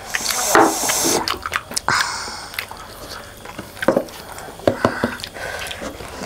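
Close-up eating and drinking sounds: slurping and sipping from cups in the first couple of seconds, then wet mouth smacks and small clicks.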